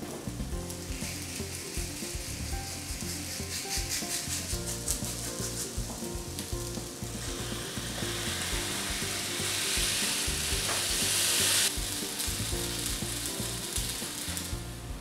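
Potato dough sizzling and crackling on the hot plates of an electric waffle maker. About halfway through it swells into a louder, steady hiss for a few seconds, then drops back suddenly.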